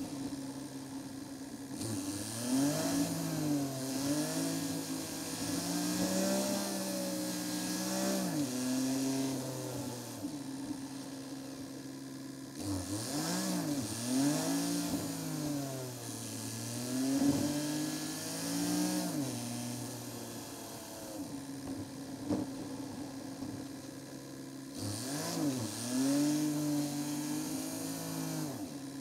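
Seat Ibiza's engine running through repeated rise-and-fall cycles of revs as the car accelerates and changes gear, sped up, with a steady hiss of wind and road noise over it.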